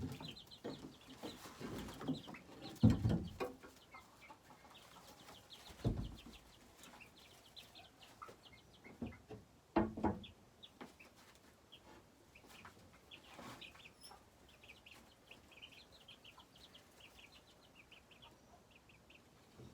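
Chickens calling with a run of quick, high, chirping notes, broken by a few dull thumps in the first half, the loudest about three seconds in.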